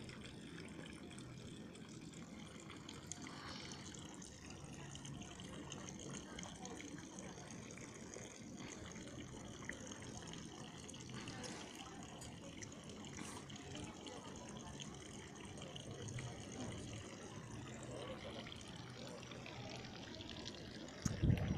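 Fountain water streaming from two urinating-man statues and trickling steadily into the shallow pool below, with faint voices of people around. A loud low rumble on the microphone comes in near the end.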